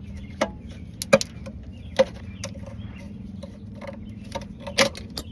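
Irregular clinks and knocks of hand tools and metal parts during work on a minivan's starter area, about six sharp strikes, over a steady low hum.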